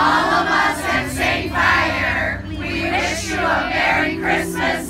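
A group of adult voices, mostly women, singing together in chorus, with a steady low hum underneath.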